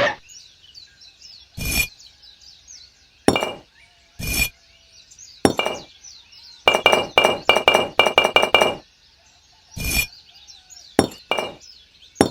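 Sharp clinks of hard objects striking each other, each with a short, high ring. They come singly at first, then in a quick run of about eight, then a few more singly near the end. Faint bird chirps sound throughout.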